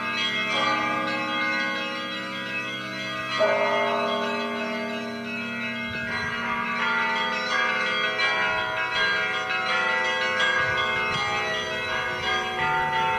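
Russian Orthodox monastery bells being rung: several bells of different pitches struck in turn, their tones ringing on and overlapping. A fresh strike comes about three and a half seconds in, and the ringing grows busier from about halfway through.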